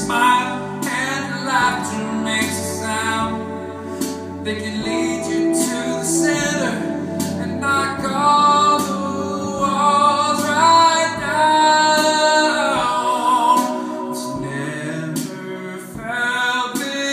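Live solo performance: a man singing held, wavering notes to his own electric guitar, strummed in steady chords a little over once a second.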